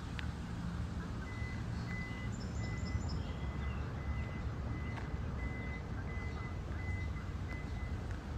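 A vehicle's reversing alarm beeping at one high, even pitch, about two beeps a second, starting about a second in, over a low steady rumble.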